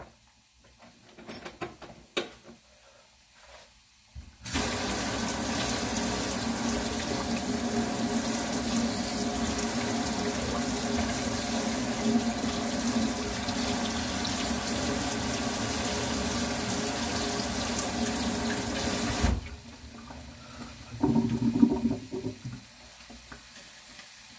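Water running hard and steadily from a tap for about fifteen seconds. It starts suddenly about four seconds in and cuts off abruptly. A few sharp knocks come before it and a brief handling sound after.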